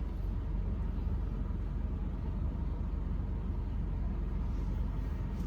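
Car engine idling, heard from inside the cabin as a steady low-pitched noise.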